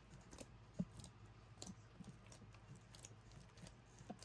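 Faint, scattered sticky clicks and squelches of slime being squeezed and stretched by hand, one a little louder about a second in.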